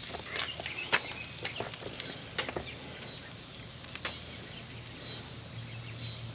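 Quiet outdoor ambience: a steady low hum with a few faint, short clicks or chirps in the first few seconds.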